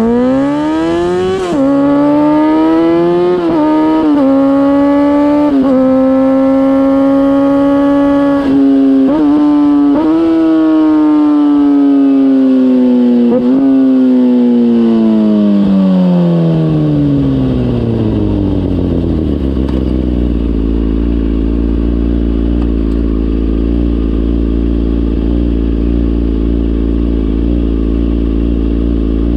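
Kawasaki ZX-6R inline-four through a MIVV GP slip-on exhaust, accelerating hard through several gears. Each upshift drops the revs briefly, and then the revs climb again. The engine note then falls away over several seconds as the bike slows, and it settles into a steady low-rev burble near idle for the last third.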